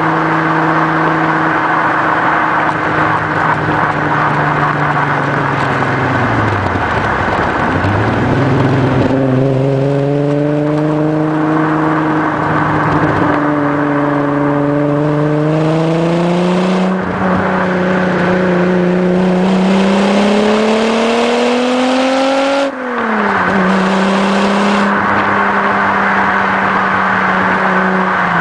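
Volkswagen Corrado VR6 engine and exhaust heard from low at the back of the moving car. The note holds steady, sags about a quarter of the way in, then climbs through two long pulls with a short break between them. It falls sharply a little past three-quarters of the way through and settles into a steady cruise.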